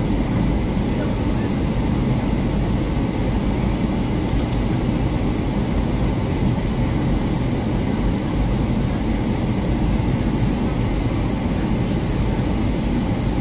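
Steady cabin noise of a Boeing 757-200 in flight, heard from a window seat over the wing: a continuous low rumble of the jet engines and rushing air, with a fainter hiss above it.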